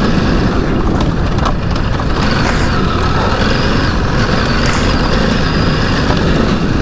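Ducati DesertX Rally's 937 cc V-twin engine running steadily as the bike rides over rough trail, mixed with wind rumble and a few sharp knocks from the tyres and suspension over the ground.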